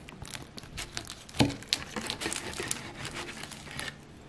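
Knife cutting through a flaky, cream-filled fastelavnsbolle pastry: the crisp pastry layers crackle in many small irregular crunches, with one louder crunch about a second and a half in.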